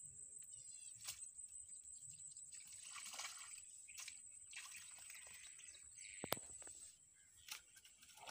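Faint water sloshing and splashing from a hooked fish struggling at the surface of a small pond as the rod is lifted, under a steady high-pitched whine, with a few sharp clicks, the loudest about six seconds in.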